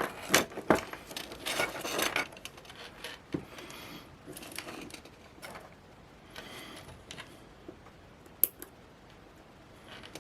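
Small metal and plastic parts handled on a workbench: a run of clicks and light clatter in the first couple of seconds, then quieter rustling and scattered clicks, with one sharp click about eight and a half seconds in.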